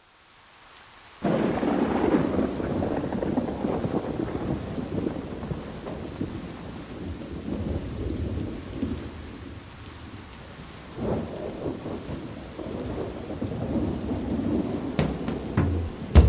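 A deep rolling rumble over a steady hiss. It fades in, jumps sharply louder about a second in, eases off, and swells again around eleven seconds.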